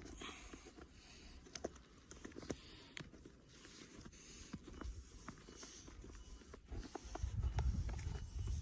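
Faint, uneven footsteps crunching through snow, a soft hiss with each step about every half second, with a few light clicks. A low rumble builds near the end.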